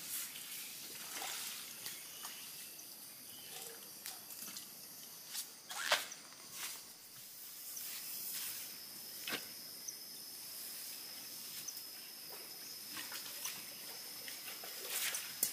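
Quiet forest ambience: a steady high hiss with scattered sharp clicks and knocks, the loudest about six seconds in.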